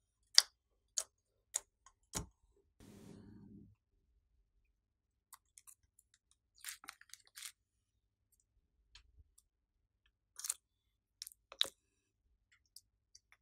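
Hand-pressed glossy slime: sharp pops about every half second near the start as fingers push into it, then sticky, crackling squelches as green slime is worked out of its container and poured.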